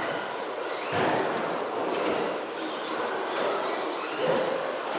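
Several radio-controlled stadium trucks racing laps, their motors whining and rising and falling in pitch as they speed up and slow down.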